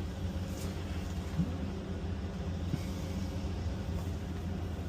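Large diesel engine idling with a steady low hum, with a couple of faint short knocks.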